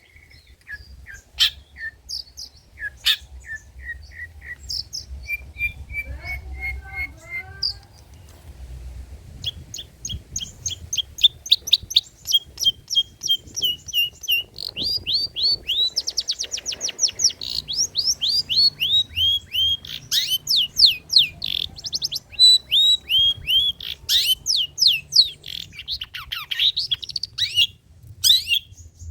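Long-tailed shrike (cendet) singing its varied, mimicking song. It opens with slower whistled notes and a few chips, and from about a third of the way in breaks into fast runs of sharp down-slurred notes, several a second.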